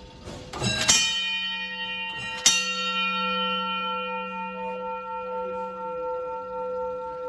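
Electric fire alarm bell striking twice, about a second and a half apart, with a long ringing tone after each strike. It is sounding out the code of alarm box 21, one round of the four.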